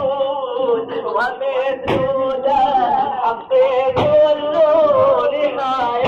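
A man chanting in Arabic, drawing out long melodic notes that glide up and down. A sharp beat comes about every two seconds.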